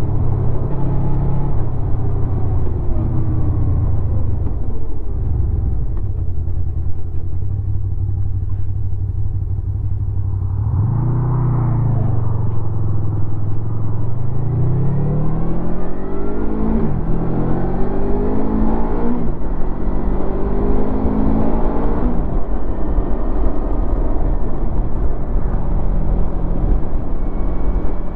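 2016 Honda VFR800's V4 engine through its stock exhaust. It runs steadily at first and gives a brief rev about eleven seconds in. It then accelerates through the gears, its pitch rising and dropping sharply at three upshifts, before settling into a steady cruise.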